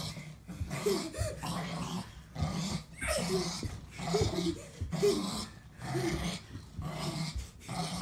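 Pug play-growling in short repeated bursts, about one a second, as it tugs at a pair of shorts.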